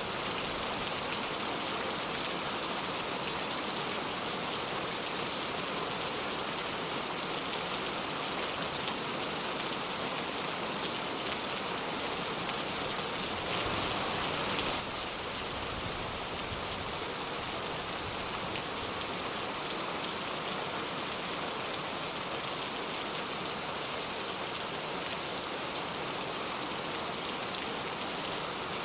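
Steady rain falling and pattering on surfaces, an even hiss without pause. A little before halfway it swells briefly louder for about a second, then settles back slightly quieter.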